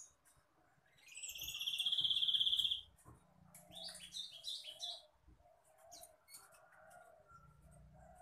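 Black-naped monarch calling: a rapid, buzzing trill of about two seconds that grows louder, followed by a quick run of short stepping notes, then faint scattered chips.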